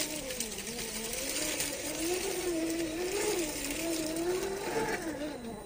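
Whine of a 1/10-scale MST CFX-W rock crawler's 550-size brushed electric motor and gear drivetrain, its pitch rising and falling with the throttle as the truck climbs. A dense crackle of tyres crunching over dry leaves and rock runs under it.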